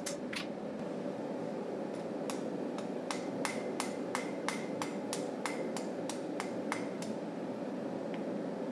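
Hammer blows on hot knife steel over an anvil, each a sharp strike with a short ring: two near the start, then a steady run of about three blows a second that stops about a second before the end. A steady background rumble runs underneath.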